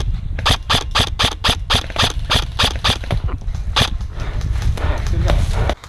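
Airsoft replica firing a rapid string of sharp shots, about five a second, over a steady low rumble. The shots fade out about four seconds in.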